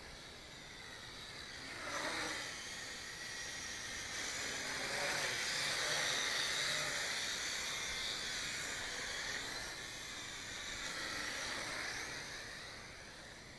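Propel Spyder XL quadcopter's propellers buzzing in flight, getting louder toward the middle and fading near the end, the pitch dipping and rising a few times.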